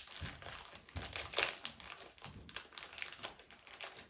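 Foil wrapper of a Pokémon trading-card booster pack crinkling in irregular bursts as it is torn open and handled, loudest about one and a half seconds in.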